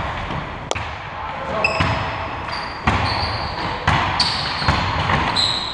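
Basketball game in a hall: the ball bounces on the court with sharp thuds roughly once a second, while basketball shoes give short high squeaks on the floor.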